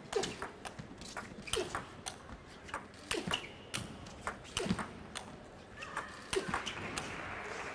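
Table tennis rally: the celluloid ball clicks sharply off the bats and table in a long exchange, with short squeaks from shoes on the court floor. Crowd noise swells about six seconds in as the rally goes on.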